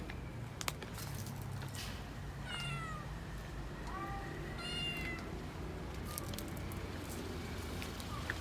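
A kitten meowing: a few short, high-pitched meows between about two and a half and five seconds in, over a low steady hum.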